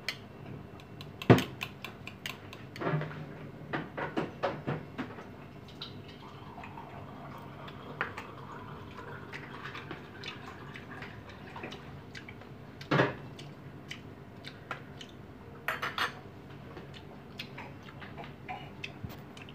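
Metal cutlery clinking and scraping against ceramic bowls, with bowls set down on a stone counter. The sharp clinks come scattered: a run of them a few seconds in, and single loud ones later on.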